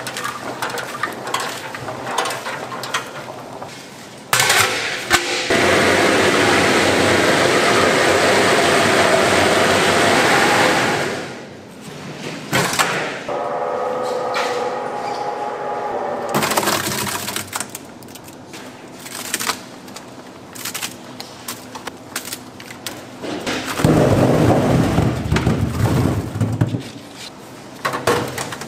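A stainless-steel drum vegetable-processing machine runs with a loud, steady rushing noise for several seconds, then stops. Around the middle a steady hum of even tones follows, then comes a stretch of knocking and clattering of vegetables against metal, with another loud rush near the end.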